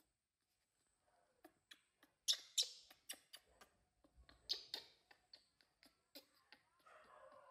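Newborn baby monkey giving a string of short, high squeaks and clicks, the loudest a couple of seconds in and again about halfway through.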